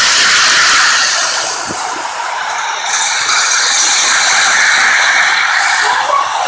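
Lionel model train running fast on three-rail track close by, a steady loud rushing of wheels and motor. It dips briefly about two seconds in, then comes back up as the train passes again.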